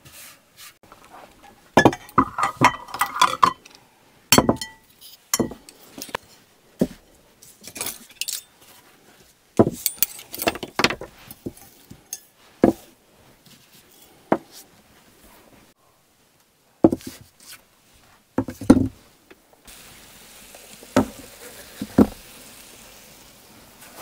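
Cookware and utensils clinking and knocking in scattered separate strikes, a few with a short metallic ring. A soft steady hiss comes in for the last few seconds.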